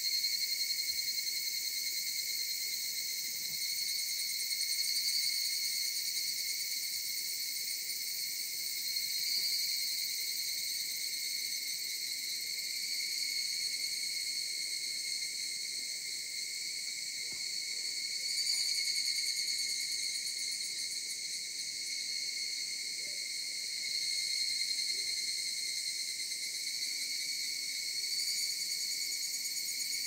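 A chorus of cicadas singing in a steady, unbroken high-pitched drone, swelling a little louder every several seconds.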